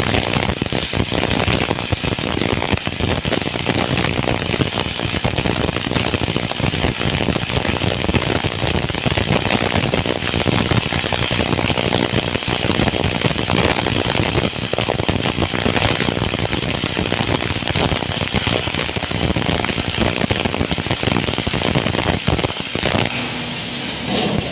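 Electric arc welding in the flat position: the arc crackling and sputtering steadily, breaking off about 23 seconds in.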